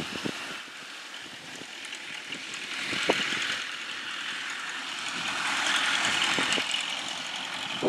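Belarus MTZ tractor towing a grain trailer along a dirt track, its engine running under a steady noisy wash that swells twice as it comes closer, with a few sharp knocks from the trailer over bumps.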